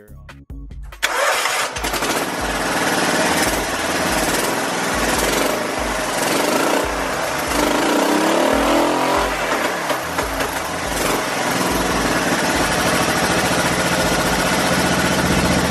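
Small lawn-tractor engine fitted with a freshly installed 26 mm Mikuni slide carburetor, starting about a second in and then running, with the throttle blipped up and down.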